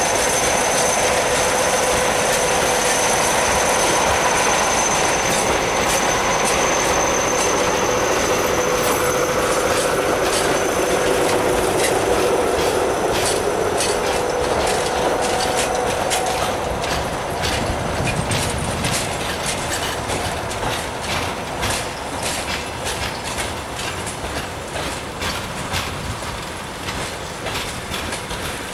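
Track-repair train's flatcars and crew coaches rolling past. Wheels squeal with steady high tones through the first half, then wheel clicks over the rail joints become plain as the sound slowly fades.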